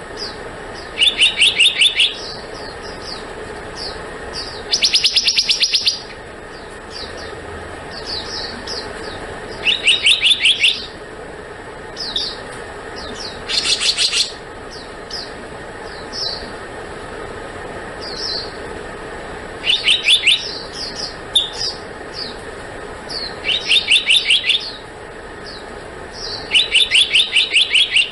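Black-naped monarch singing: about seven quick runs of repeated whistled notes, each lasting about a second, with short single chirps in between.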